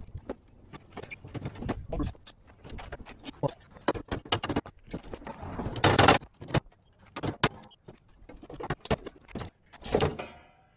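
Metal clips being worked off the lid of a plywood shipping crate with pliers: an irregular run of clicks, clinks and scrapes, with a louder scuffle about six seconds in and a heavier wooden knock and scrape near the end as the lid is lifted off.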